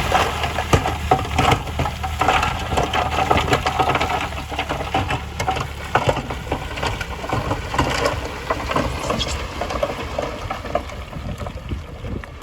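Heavy diesel earthmoving machine running, with dense, irregular crunching and clattering of gravel and stones. The steady engine hum fades after about six seconds while the crunching carries on.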